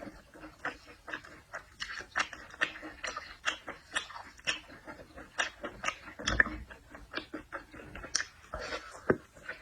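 Close-up chewing and mouth sounds of someone eating seafood: an irregular run of short clicks, several a second, with one louder thump about six seconds in.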